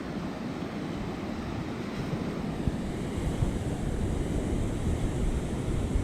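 Ocean surf washing on the beach, mixed with wind buffeting the microphone, growing a little louder over the last few seconds.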